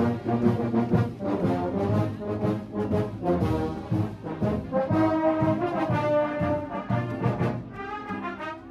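Marching band playing brass music while passing close by, with sousaphones in the low part and a steady beat.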